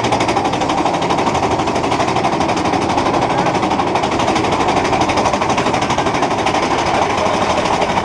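Big Thunder Mountain Railroad mine-train roller coaster running along its track, a loud, steady, rapid clatter.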